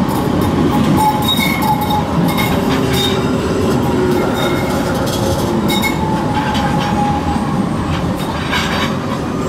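An Alstom low-floor tram runs past at close range, giving a steady rumble of steel wheels on rail. Short, high-pitched squeals come and go over it, with a few scattered clicks.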